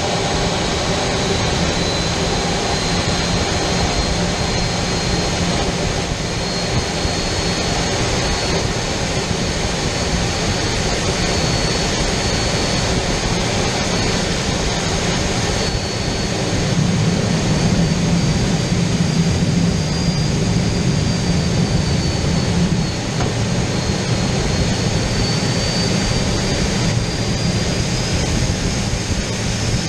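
Aero L-29 Delfín's Motorlet M-701 turbojet heard from inside the closed cockpit in flight: a steady high whine over a continuous rush of engine and air noise. The sound grows somewhat louder about halfway through, and the whine edges up in pitch near the end.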